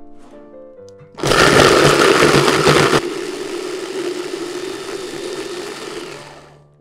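Electric mini chopper (hand-blender motor on a chopping bowl) starting about a second in and blending chilli peppers, garlic and oil into a purée. It is loudest for the first couple of seconds, then runs steadier and quieter before fading out near the end.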